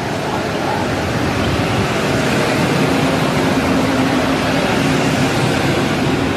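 Siemens Vectron electric locomotive passing close, with a loud, steady rushing noise and a low hum through the middle, then the double-deck car-carrier wagons behind it rolling past.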